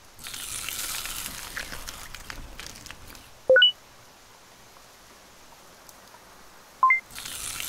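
Stop-motion sound effects: a rustling hiss lasting about three seconds, then two short, loud blips that jump up in pitch in quick steps, a few seconds apart, and another hiss starting near the end.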